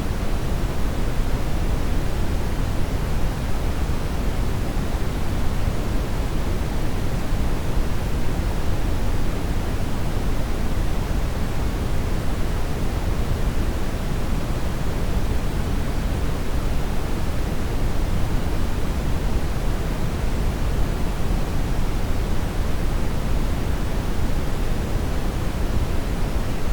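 Steady, unchanging synthetic noise, a constant hiss-and-rumble with most of its energy in the low end and less toward the top, played as a tinnitus-masking noise track.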